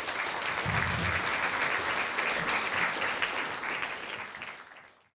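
Audience applauding, a dense steady clapping that dies away near the end and then cuts off abruptly.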